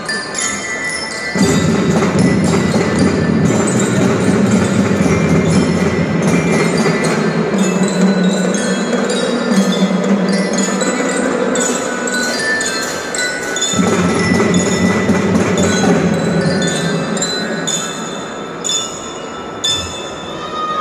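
Marching band playing, with bright, bell-like mallet-percussion notes running through. A full, loud lower section comes in about a second in, breaks off for a moment past the middle, comes back, and thins out near the end.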